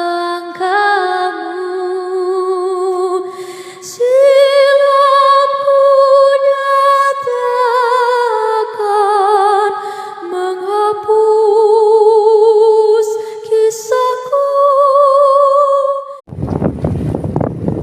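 A woman's voice singing slow, long-held notes with a wide vibrato, in the manner of a lullaby or chant. About sixteen seconds in, the singing cuts off and a loud, steady rushing noise takes over.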